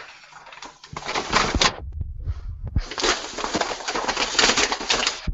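Brewing grains being poured from a plastic bag into a stainless steel kettle of water, a dry rustling hiss in two pours, the second longer, with a few low knocks between them. This is mashing in: the grains go into water held at 122 °F.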